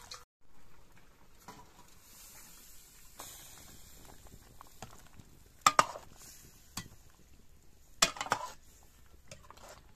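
A metal ladle stirring a simmering curry in a steel kadai, over a faint steady sizzling hiss. The ladle clinks sharply against the pan once, a little before the middle, and then in a quick cluster of strikes about two seconds later.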